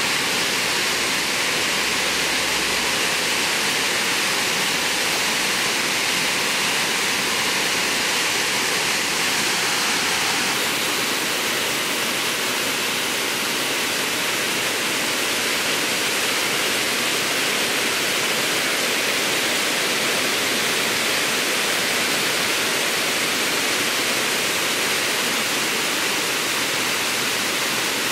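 Waterfall: water rushing over rock ledges in a steady, even noise, with a slight shift in tone about ten seconds in.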